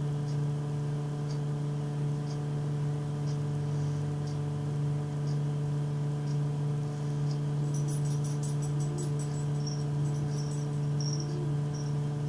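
Steady electrical hum from an indoor appliance, with evenly spaced overtones. Faint high insect chirping joins it from about halfway through, a rapid clicking trill with short chirps.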